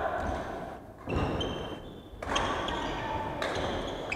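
Badminton rally on a wooden hall floor: sneakers squeaking briefly on the boards, with footfalls and the sharp hits of rackets on the shuttlecock.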